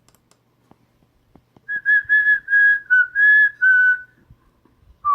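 A person whistling a short catchy melody: a quick run of about eight short notes, mostly on one high pitch, the last one dipping lower, starting a little under two seconds in. Faint clicks come before it.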